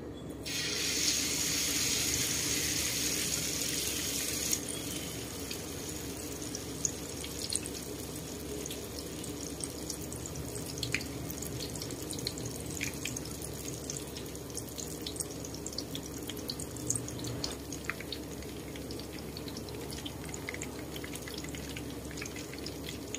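Battered eggplant deep-frying in a wok of hot oil. It begins with a loud sizzle about half a second in that eases after about four seconds into a steady sizzle with scattered crackles and pops.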